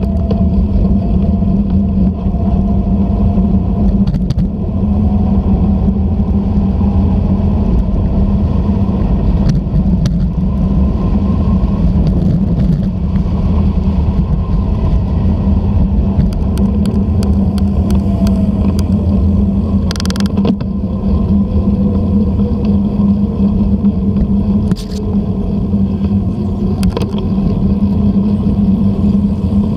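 Steady rumble of wind and tyre noise picked up by a GoPro riding on a moving road bike, with a few sharp knocks from bumps in the road, mostly in the second half.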